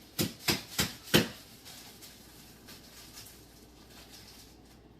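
Four sharp knocks in quick succession, about a third of a second apart, in the first second or so: a bag of frozen peas, frozen solid into a chunk, being struck against a hard surface.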